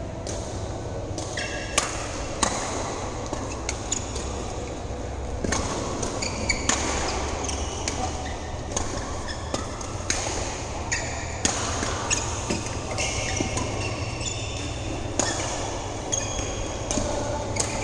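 Badminton rally: rackets striking the shuttlecock in irregular sharp cracks, mixed with sneakers squeaking on the court mat, in a large hall, over a steady low hum.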